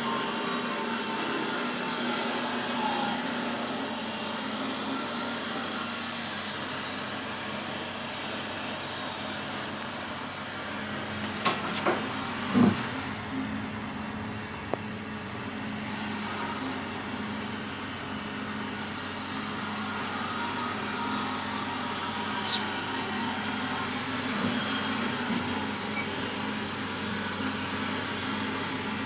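A machine running with a steady hiss and low hum, with a few sharp clicks about twelve seconds in.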